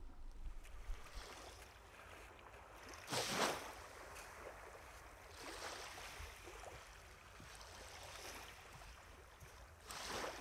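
Small waves from a calm sea washing gently onto a sandy beach, one soft wash every two to three seconds, the loudest about three seconds in.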